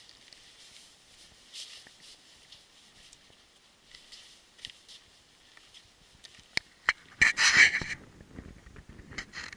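Footsteps and scuffs on rocky, gravelly ground, faint and scattered at first, then a loud crunching scrape about seven seconds in, followed by further light steps.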